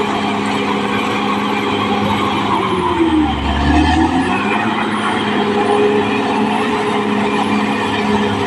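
Caterpillar D6R XL bulldozer's diesel engine running steadily. About three seconds in, its note sags in pitch and deepens, then climbs back up about a second later.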